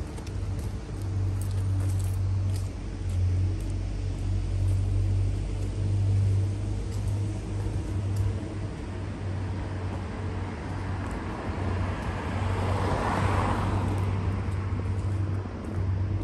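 City street traffic: a steady low rumble, with one vehicle passing by about three-quarters of the way through.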